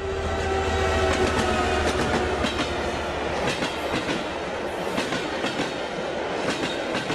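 Railway carriage wheels clattering over rail joints, repeated sharp clicks over a steady rolling rumble, growing louder over the first second.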